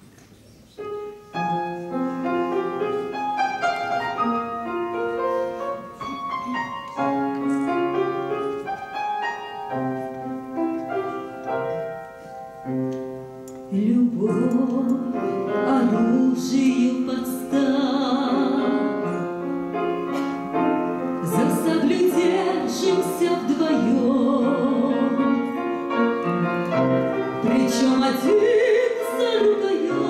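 Grand piano playing the introduction to a classical Russian romance; about halfway through a woman's trained voice comes in, singing with wide vibrato over the piano.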